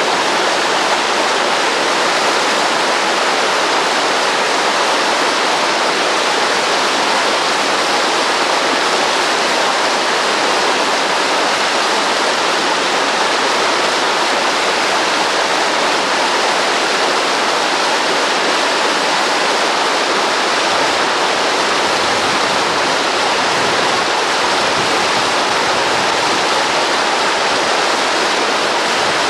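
Whitewater rapids cascading over rock ledges: a loud, steady rushing of water.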